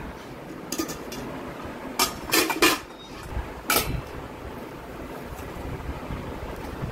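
Steel spoon clinking and scraping against stainless-steel pots and bowls as rice and potato curry are dished out, with about five sharp clinks in the first four seconds.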